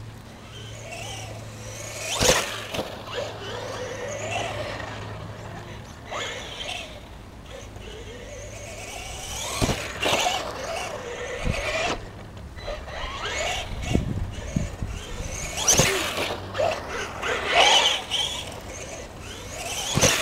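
Schumacher CAT SX2 electric 4WD RC buggy driving on grass, its motor and gears whining and rising and falling in pitch as it speeds up and slows, with several sharp knocks as it bounces, the last near the end as it goes over a ramp.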